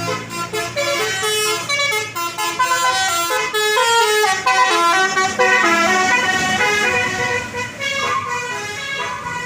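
Bus telolet horn: a set of multi-tone air horns playing a quick melody, its notes stepping up and down several times a second.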